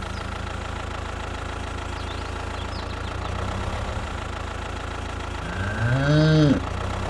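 A cow moos once, the call rising and then dropping over about a second, near the end. Under it runs the steady low rumble of an idling engine.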